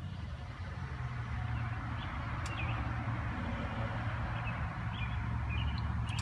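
Steady low hum of an idling engine, with a few short bird chirps over it.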